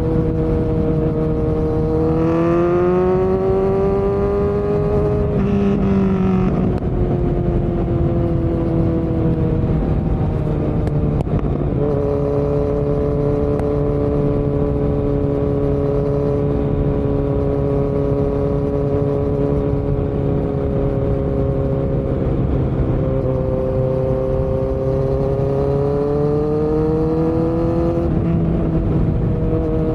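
2018 Kawasaki Z900's 948 cc inline-four engine running loudly through Delkevic headers and a Yoshimura muffler with no dB killer, while the bike is under way. The engine note climbs twice, about two seconds in and again near the end, and drops back each time, with a steadier cruising note in between.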